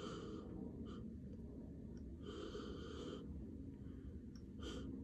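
A person sniffing through the nose at an opened jar of mint toothpaste tablets: a few faint sniffs, the longest a little over two seconds in.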